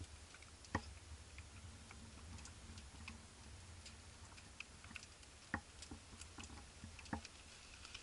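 Faint, irregular crackles and ticks of a wood fire burning in a small homemade metal tent stove, over a low steady rumble.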